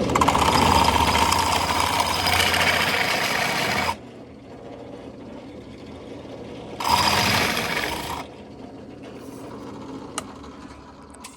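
Power drill with a large bit boring a hole through a switch panel: a long run of about four seconds, a pause, then a second short run of about a second and a half. A single sharp click comes near the end.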